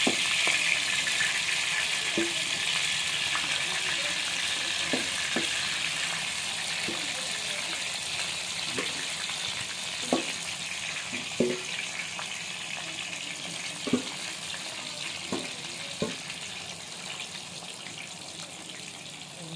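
Oyster meat sizzling as it fries in coconut oil, the sizzle slowly dying down, with a metal spoon knocking against the pan every second or two as it stirs.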